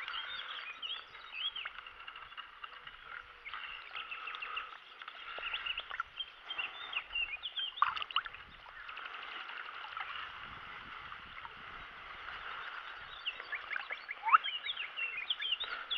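Many small birds chirping and singing at once in a steady chorus of short, quick calls. A few short, sharp sounds from the landing net being handled in the shallow water break in, the loudest near the end.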